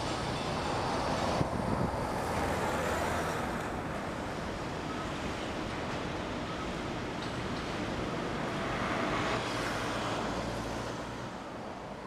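City road traffic: a steady wash of tyre and engine noise, louder as vehicles pass about a second in and again near nine seconds.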